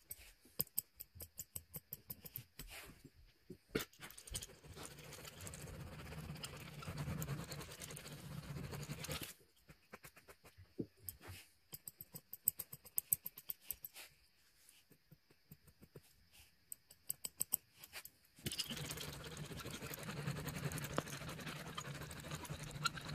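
Rapid little clicks of a small blade tool snipping and trimming carpet pile, alternating with the steady rasp of a spiked carpet roller rolled back and forth over the carpet, once in the first half and again for the last few seconds.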